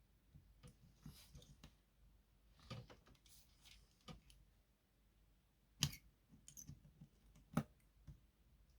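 Faint clicks and taps of small tools and a circuit board being handled on a workbench, with two sharper clicks in the second half about a second and a half apart.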